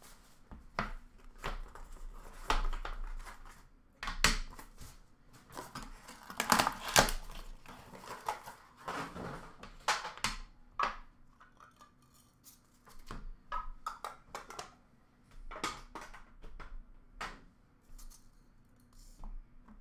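Trading-card box being opened by hand and its packs lifted out and set down in a plastic tub: an irregular run of clicks, knocks and cardboard scrapes, loudest about four and seven seconds in.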